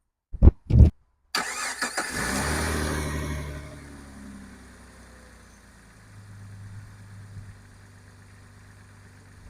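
Two loud thumps, then the 2002 Jeep Grand Cherokee's engine catches almost at once and starts right up. It runs fast for a couple of seconds, then settles to a steady idle. It now starts cleanly because the corroded negative battery terminal has been cleaned and its ground connection bolted tight.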